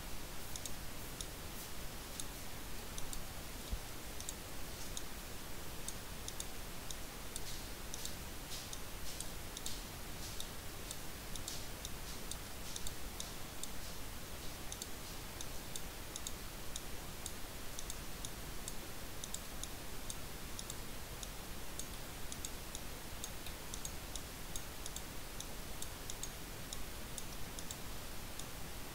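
Computer mouse clicking repeatedly at an uneven pace, over a steady background hiss.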